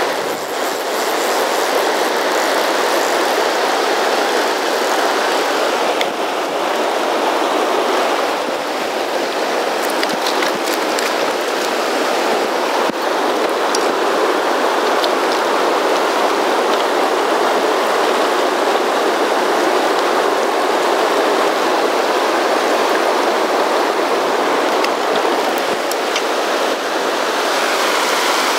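A fast, rocky mountain river rushing over boulders through whitewater pocketwater rapids: a loud, steady rush of water close at hand.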